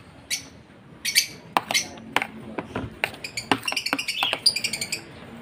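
A metal spoon clinking and scraping against a plastic basin as soft food is scooped out, in a series of sharp irregular clicks. Lovebirds chirp briefly in the background.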